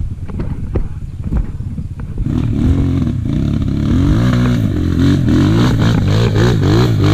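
Enduro motorcycle engine running low for about two seconds, then revving up and down in repeated swells as the bike is ridden hard.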